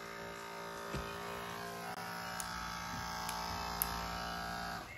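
Caresmith Charge Flex cordless massage gun running with a steady buzz from its percussion motor as it is used on the muscles, then switched off near the end.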